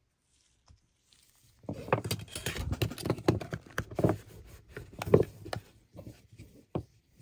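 Gloved hands handling small objects on a desk: rustling with a quick series of clicks and knocks as a metal tin case and USB sticks are picked up and set down. The sharpest knock comes about five seconds in, with a few lighter taps after.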